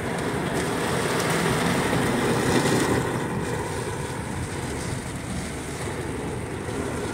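Steady rush of a Toyota RAV4 driving through heavy rain, heard inside the cabin: tyres running on the wet, flooded road and rain on the car.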